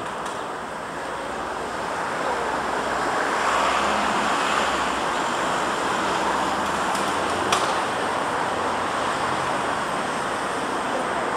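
Steady street traffic noise, swelling for a few seconds as a vehicle goes by, with one sharp click about seven and a half seconds in.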